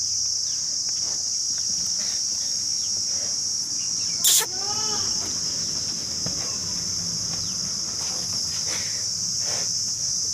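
Steady high-pitched drone of insects, such as crickets or cicadas, running throughout. About four seconds in there is a sharp click or knock, followed by a short call of a few quick rising-and-falling notes.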